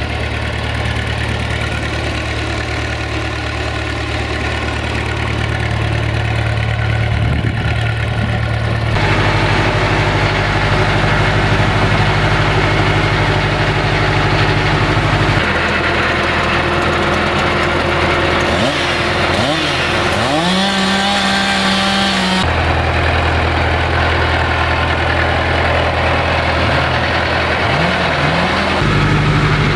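UTB Universal 651M tractor's four-cylinder diesel engine idling steadily. About two-thirds of the way through it is revved up and held at a higher speed for a couple of seconds before settling back to idle.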